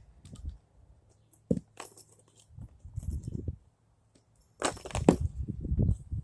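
Scattered clicks and clinks of small metal hardware and tools being handled, with a sharp knock about a second and a half in and a louder run of clatter near the end.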